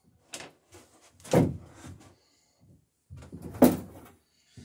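A few scattered wooden knocks and clunks as timber cleats are handled and shifted on the plank bottom boards of a wooden boat, the loudest about a second in and again past three seconds.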